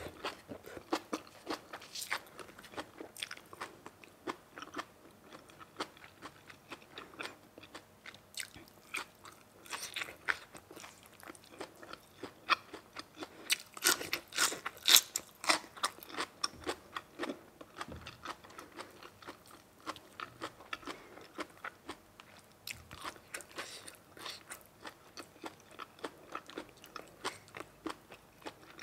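A person chewing and crunching food close to the microphone: a steady string of short wet clicks and crunches, with a run of louder crunchy bites about halfway through.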